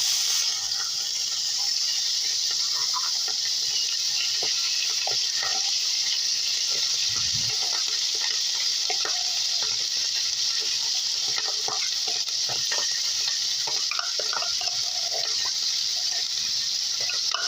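Canned corned beef hash sizzling in hot oil in a frying pan: a steady hiss that starts suddenly as the hash goes in, with scattered short clicks and scrapes.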